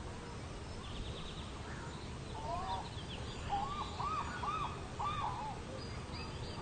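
Birds calling: four short rising-and-falling calls in quick succession about halfway through, with a few higher chirps, over a steady hiss.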